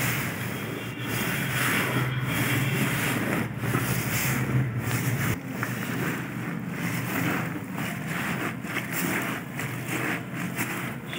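A silk saree being squeezed and swished by hand in a bucket of dry-cleaning solvent, with rubber gloves: irregular sloshing and rubbing of wet fabric that swells and dips every second or so.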